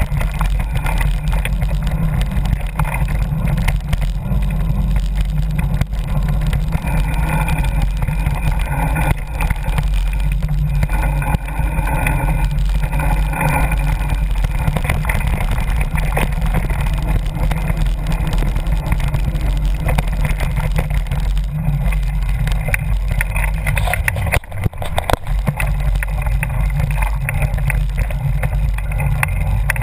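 Loud, steady wind rumble buffeting a moving camera's microphone, with rattles and jolts from riding fast over a dirt trail.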